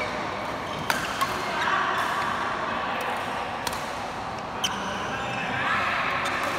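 Badminton racket strings striking a shuttlecock during a rally: a handful of sharp, short hits spaced about a second apart. Voices chatter across the hall underneath.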